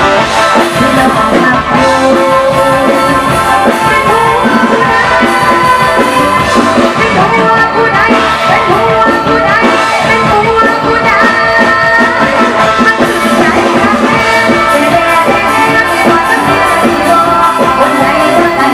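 Live band music from an Isan (northeastern Thai) luk thung–mor lam band, with drum kit and a voice singing over the instruments.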